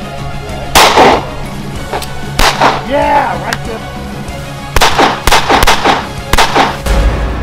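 Handgun shots: single shots about a second in and near two and a half seconds, then a quick string of about seven in the last three seconds, over steady background music.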